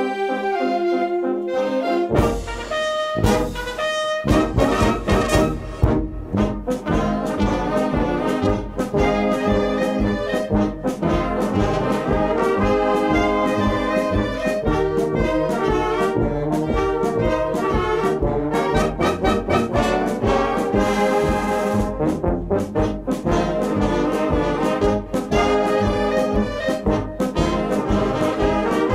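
German brass band (Blasorchester) playing a show-tune arrangement: held chords at first, then about two seconds in the full band comes in with tuba bass and a steady beat under the trumpets and horns.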